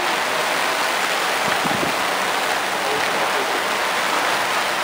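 Heavy rain from a downpour, a steady hiss.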